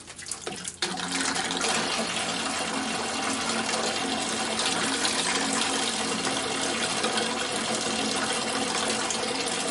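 Water from a hydronic heating system's expansion tank running steadily out through an open drain gate valve into a bucket, starting about a second in. A straw in the valve opening lets air into the sealed tank, breaking the airlock so the water can flow.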